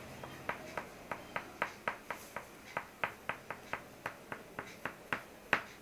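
Crayon strokes on drawing paper: a quick, even series of short ticks, about three or four a second.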